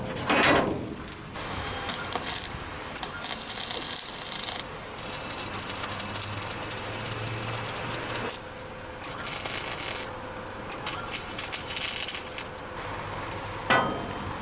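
Hand work against the stainless-steel wall of a dump truck bed: rubbing and scraping in several hissing stretches of a few seconds each, with light metal rattles between them.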